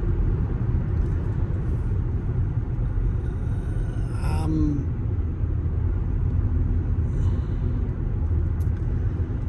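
Steady road and wind noise inside a moving vehicle's cabin, a low even rumble from tires on pavement, on a set of Michelin Premier LTX tires with no tire roaring.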